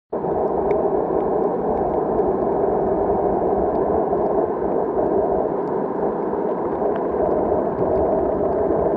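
Steady, muffled underwater rush picked up by a camera below the water's surface, with faint scattered clicks.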